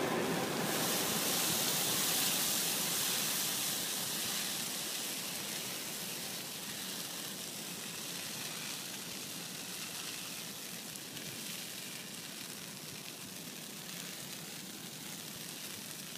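Large brush-pile bonfire burning: a steady hiss of flames, strongest in the first few seconds and slowly dying down.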